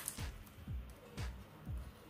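Background music with a steady beat, about two low kick-drum thumps a second.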